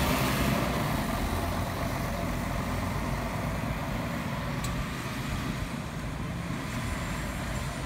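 Mercedes-Benz articulated diesel city bus pulling away and driving off, its engine and tyre noise fading over the first few seconds into steady street traffic noise. A single sharp click about halfway through.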